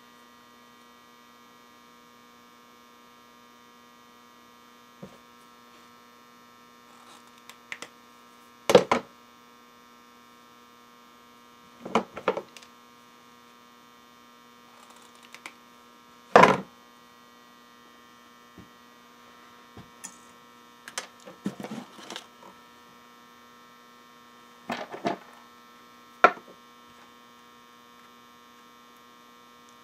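A steady electrical hum, with scattered sharp clicks and knocks of wires and small parts being handled on a workbench; three of the knocks are much louder than the rest.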